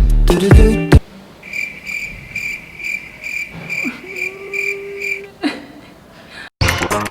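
Cricket chirping in a steady rhythm, about two and a half chirps a second, after music cuts off about a second in. A lower held tone joins near the middle, and music comes back just before the end.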